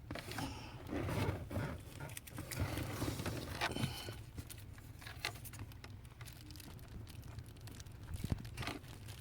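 Faint handling noise from work on a small wire connector: scattered light clicks, taps and rustles from tools and small parts, over a low steady hum.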